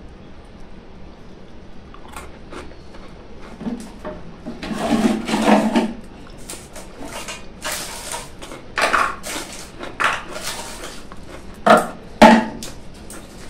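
Close handling noises of chocolate-filled biscuits being broken and pulled apart in the fingers: scattered small clicks and crackles, a busier stretch in the middle, and two sharp louder clicks near the end.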